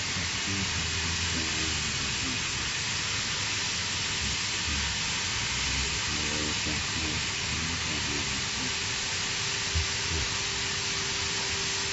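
Plasma cutting torch on a CNC gantry profile cutter hissing steadily as it cuts through steel plate.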